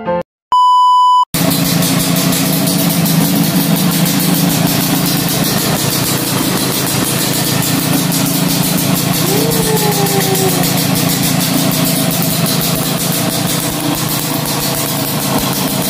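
A short high electronic beep, then the Yamaha RS100's single-cylinder two-stroke engine idling steadily with a fast, even exhaust beat.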